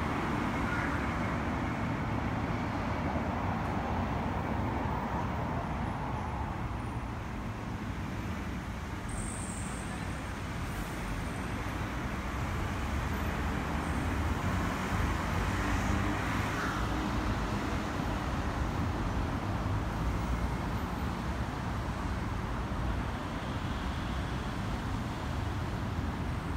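Steady road traffic noise from passing cars, swelling a little about halfway through.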